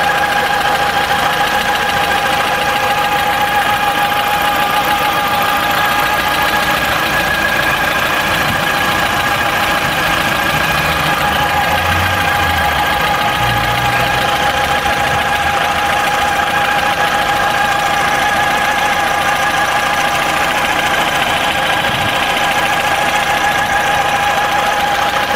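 Car engine running steadily, with a constant high-pitched whistle from under the hood.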